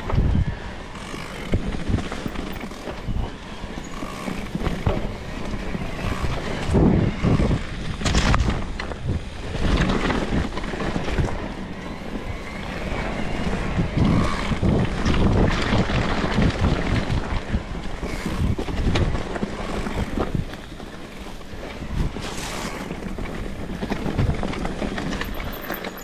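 Wind buffeting the microphone of a GoPro Hero 10 on a moving bicycle. The noise surges and drops unevenly, with many sudden jolts from the Cube HPC SL riding over the ground.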